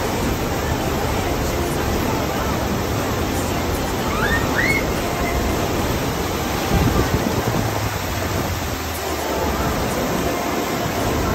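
Water rushing steadily out of a water slide's outlet into its splash pool, with a louder surge about seven seconds in as an inflatable ring tube comes down the slide and splashes into the pool.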